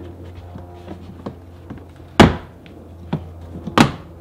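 Plastic trim clips on an Infiniti FX door panel snapping loose as a trim cover is pried off with a plastic pry tool: a sharp snap about two seconds in and another near the end, with a smaller click between.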